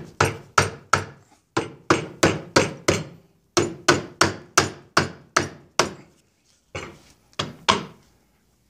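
Repeated sharp blows on the Johnson 9.5 HP outboard's lower-unit gearcase housing, two or three a second with short pauses, knocking the split gearcase apart to get at the gears.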